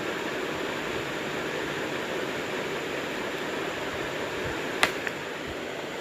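Steady background hiss of room noise, with a sharp click a little before the end and a fainter one just after it.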